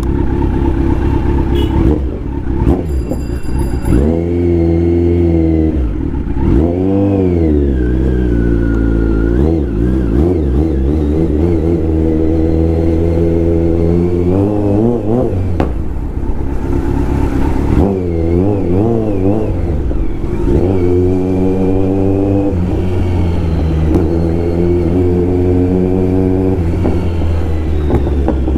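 Kawasaki Z900's inline-four engine revving as the bike is ridden, its pitch rising and falling again and again with the throttle over a steady low rumble.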